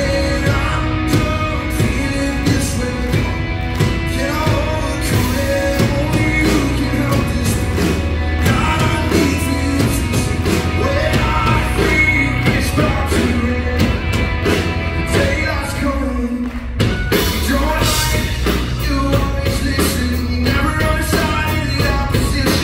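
Live rock band: a male lead singer over a drum kit and electric bass. The band drops back for a moment about 16 seconds in, then comes back in full.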